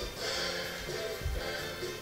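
Music playing for dancing, with a short low thump about a second in.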